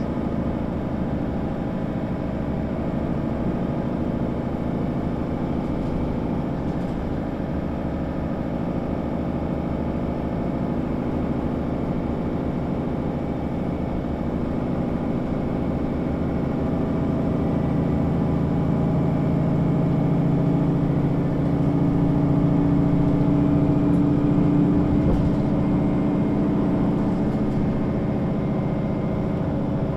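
Diesel engine of a Mercedes-Benz O 530 G Citaro articulated bus running as the bus is driven, a steady drone. It grows louder and heavier from about halfway through, then eases off a few seconds before the end.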